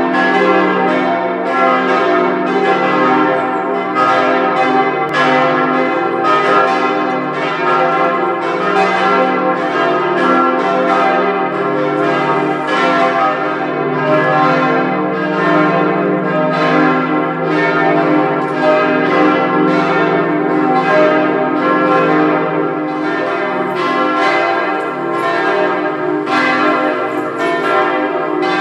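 Full peal of the Hamburg Mariendom's church bells, all the bells swinging and ringing together in overlapping strokes, about two a second, calling to evening Mass.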